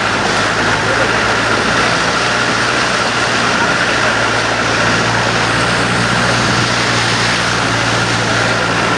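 Jeep engine running steadily under a constant loud rushing noise, with no change in pitch or level.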